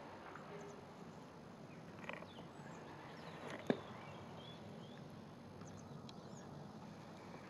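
Steel spoon scraping and knocking in a crucible of molten brass while skimming off dross, with one sharp knock about halfway through. Behind it, the faint steady hiss of the gas-fired furnace and a few faint bird chirps.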